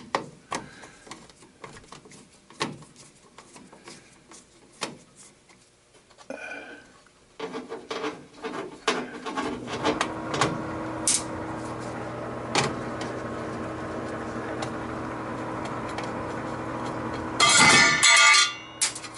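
Scattered knocks and clicks of metal panels and tools being handled, then about ten seconds in an air-conditioning unit starts a steady electric hum, with a burst of loud metallic clanking near the end. The technician suspects the unit's motor has failed.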